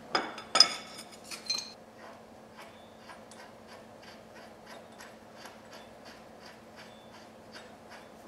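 A few loud metal clanks with a ringing edge in the first two seconds, then a ratchet wrench clicking steadily, about three clicks a second, as a front bolster bolt is run in.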